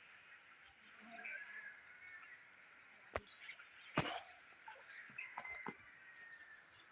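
Faint outdoor ambience with small birds chirping now and then, and two sharp knocks about three and four seconds in.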